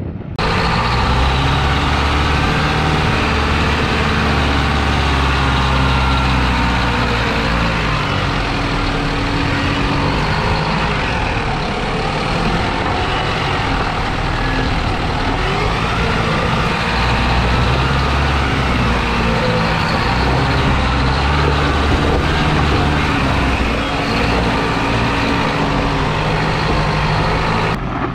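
Isuzu NPS 75-155 4x4 truck's four-cylinder turbo-diesel engine working steadily at low speed over rough off-road terrain, its note rising and falling with the throttle.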